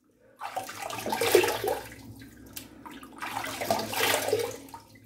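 Tap water running into a bathroom sink, with splashing as a face is rinsed. It swells twice, about a second in and again near four seconds, over a low steady hum.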